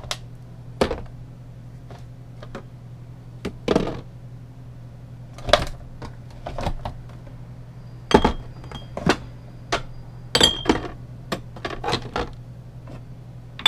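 Condiment bottles and jars knocking and clinking as they are moved around and set down on fridge shelves: a string of separate sharp clicks and knocks, with a few ringing glass clinks in the second half.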